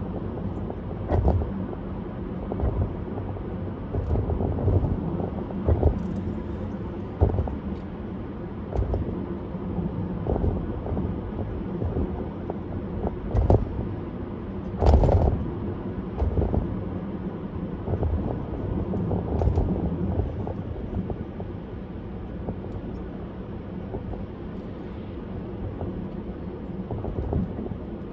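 A car driving at speed: a steady low road rumble with frequent short thumps as the tyres hit bumps and joints in the pavement, the loudest about fifteen seconds in.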